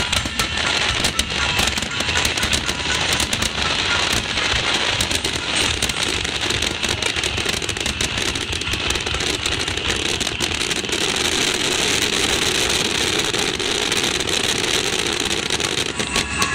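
Starmine fireworks barrage: many shells bursting in quick succession, with dense crackling and popping.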